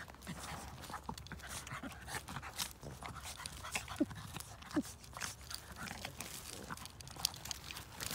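Two small dogs play-wrestling on wood chips, a Yorkiepoo puppy and a black-and-white dog: paws scuffling and crunching in the chips, with the dogs' breathing and two short throaty vocal sounds about four and five seconds in.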